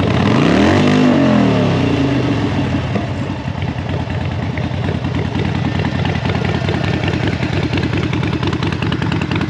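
Harley-Davidson Seventy-Two's air-cooled 1200 cc Evolution V-twin running through a Vance & Hines aftermarket exhaust. It is revved once at the start, rising and falling back within about two seconds, then settles into a steady, pulsing idle.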